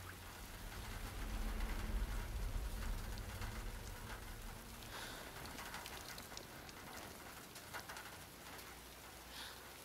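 Steady rain falling on hard surfaces, with scattered close drops. A deep low rumble swells in the first couple of seconds and fades away by about four seconds in.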